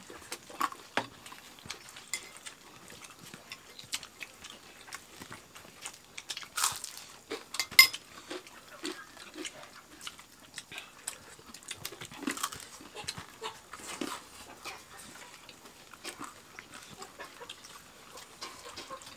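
People eating rice with their hands: chewing and lip smacking, with scattered small clicks and clinks of a spoon against dishes. A sharp clink about eight seconds in is the loudest sound.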